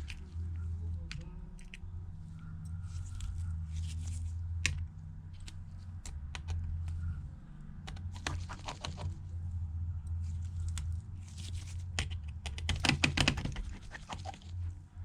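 Small clicks and short scratchy scrapes of a precision Phillips screwdriver backing out the tiny screws inside an opened iPhone 7 Plus, in scattered clusters, busiest shortly before the end. A steady low hum runs underneath.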